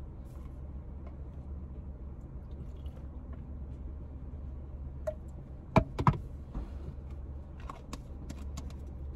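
Low steady hum of a car idling, heard from inside the cabin, with two sharp knocks close together about six seconds in and a few light clicks.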